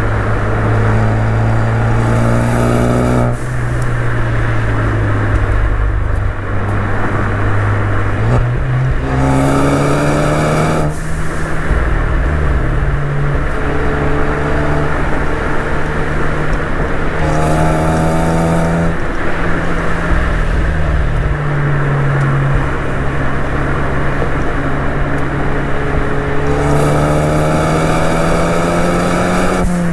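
Ford Focus ST's turbocharged 2.0-litre four-cylinder, with its resonator deleted, pulling hard through the gears: the engine note rises four times under acceleration and drops back briefly at each shift. Steady wind and road rumble run underneath.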